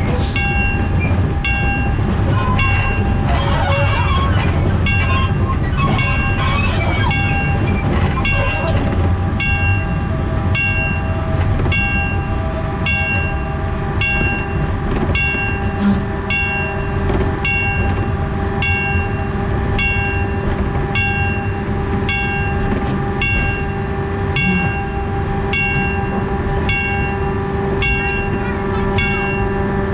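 Narrow-gauge diesel-hydraulic locomotive running steadily under way, heard from the cab as a continuous low rumble with a steady tone entering about halfway through. A metallic ringing strike repeats about once a second throughout.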